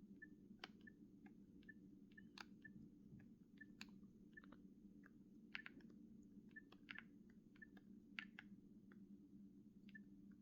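Faint, irregular clicks of the Nokia 6670's keypad buttons being pressed, over a low steady hum.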